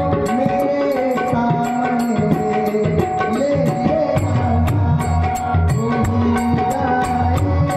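Tabla playing a steady rhythm under held melodic tones in an instrumental stretch of a devotional bhajan, with sharp high ticks keeping time several times a second.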